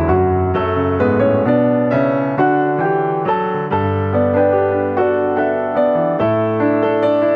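Background piano music: a steady melody of evenly paced notes over held low notes.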